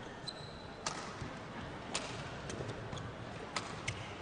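Badminton rally: sharp cracks of rackets striking the shuttlecock, roughly a second apart, with players' footfalls thudding on the court floor and a short high shoe squeak near the start, over a steady hall hiss.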